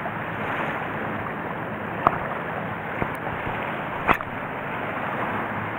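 Shallow sea water lapping over a reef flat under a steady hiss of wind, with three short clicks about two, three and four seconds in.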